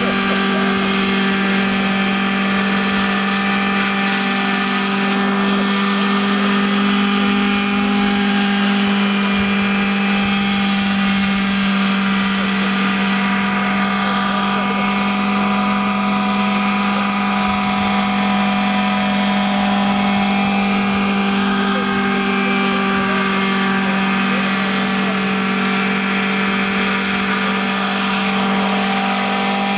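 Radio-controlled scale model Bell UH-1D helicopter hovering and flying low, its engine and rotors running with a steady, even, multi-tone drone.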